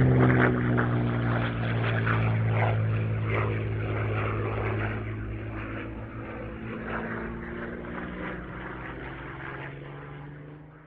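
Piston aircraft engine turning a propeller, running steadily with its pitch sinking slightly at first, then fading out gradually to silence.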